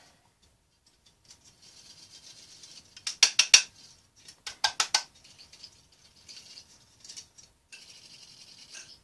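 A Sunon PMD axial fan turned and handled by hand without power, its rotor giving a faint scraping hiss as it turns, with two short bursts of rapid clicking about three and four and a half seconds in. The scraping is the rub the owner puts down to a foreign body or dirt inside the motor.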